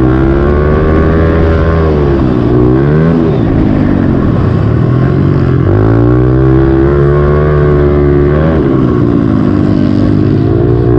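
Honda CRF110F pit bike's single-cylinder four-stroke engine, heard from the rider's helmet, pulling hard round a motocross track. The revs hold high, then dip and climb back three times as the throttle is rolled off and opened again.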